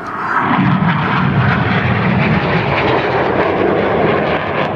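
Red Arrows BAE Hawk T1 jets flying a display manoeuvre: a loud jet roar that swells within the first half second and then holds steady.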